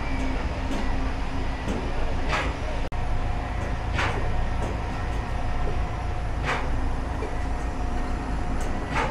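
Potato-dough sheeting machine running with a steady low mechanical rumble, with a short sharp knock every couple of seconds.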